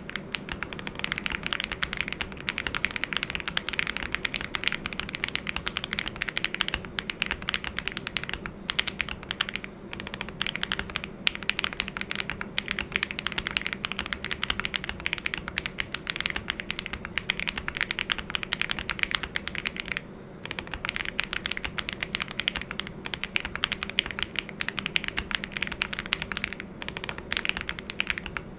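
Continuous fast typing on a WuQue Studio Freya Ultra custom mechanical keyboard: a dense stream of key clacks, broken by a few short pauses.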